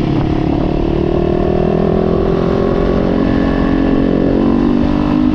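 Yamaha YZ450's single-cylinder four-stroke engine running under the rider while riding along, its pitch rising gently over the first couple of seconds, holding, then dropping near the end.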